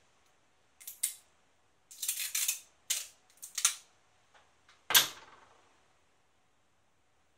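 Adhesive tape pulled and torn in several short rasping strips, then one sharp knock, the loudest sound, about five seconds in, which dies away over about a second.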